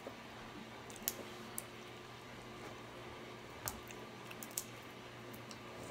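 Eating snow crab legs: soft wet mouth sounds as meat is sucked from a piece of shell, with four sharp clicks of shell. A low steady hum runs underneath.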